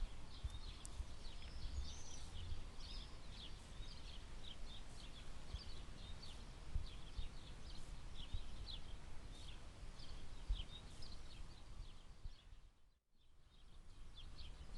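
Chicken pieces searing in a very hot pot of fat, sizzling with dense irregular crackles and pops as they brown. The sound drops out briefly near the end.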